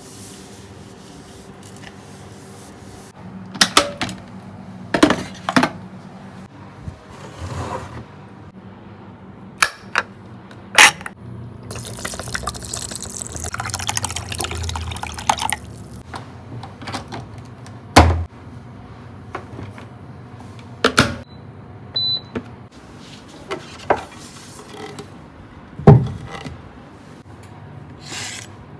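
Kitchen work sounds: scattered sharp knocks and clinks of dishes and utensils being handled, with a few seconds of running water near the middle.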